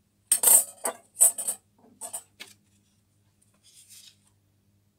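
Steel parts being handled on a mini lathe's tool post and cross-slide: a quick run of sharp metallic clinks and rattles in the first two and a half seconds, then a faint paper rustle near the end over a low steady hum.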